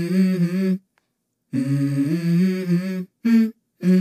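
Background song: wordless a cappella humming vocals in short phrases, each cutting off abruptly into silence.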